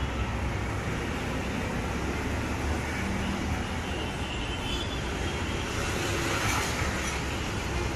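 Road traffic passing outside, a steady rumble and hiss of vehicles.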